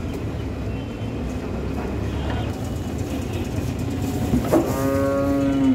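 A vehicle horn sounds one steady held note for about a second near the end, just after a short knock, over a steady low rumble of engines.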